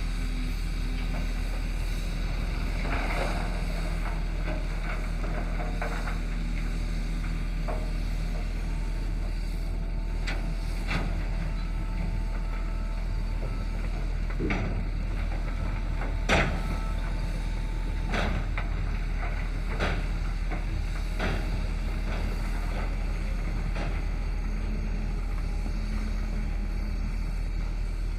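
Heavy earthmoving machinery's diesel engine running steadily with a deep, low rumble. Occasional sharp knocks and clatters, as of stone and steel, sound over it; the loudest comes about two-thirds of the way through.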